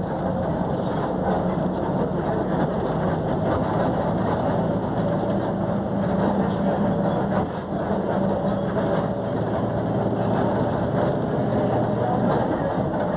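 Volkswagen 17.230 OD bus on the move, with a steady drone from its differential over the running noise: the differential is droning loud.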